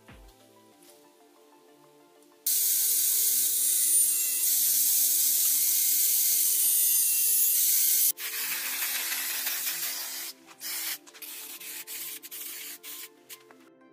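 Angle grinder with a sanding disc running on a bicycle wheel rim, a loud steady hiss that starts and stops abruptly after about five and a half seconds. Then an aerosol spray-paint can hisses for about two seconds, followed by a series of short spray bursts.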